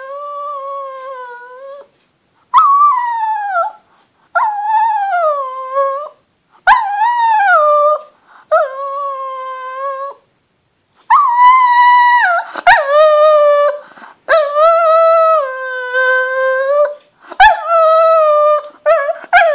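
Pekingese dog howling in a series of about ten long, whining calls, each a second or two long, several sliding down in pitch at the end, with short pauses between.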